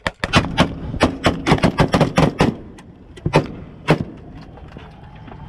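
Rapid gunfire: about a dozen shots at uneven intervals over two and a half seconds, then two more single shots about half a second apart.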